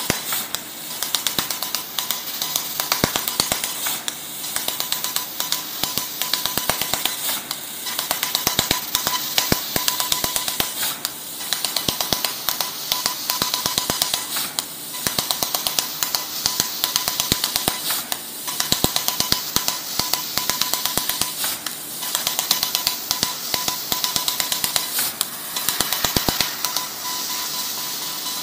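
Laser cutting machine flying-cutting 2 mm steel sheet: bursts of rapid sharp ticks as the head cuts rows of short slots one after another, recurring every few seconds over a steady hiss, with a thin steady whine. The ticking eases to a steadier hiss near the end.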